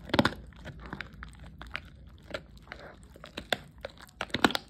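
A dog chewing its food with open-mouthed bites, irregular crunches, loudest in a cluster just after the start and again near the end.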